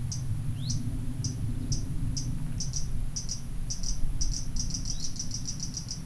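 A series of short, high animal chirps, spaced about half a second apart at first and speeding up to a quick run near the end, with one rising chirp near the start. A steady low rumble and a faint high hiss run underneath.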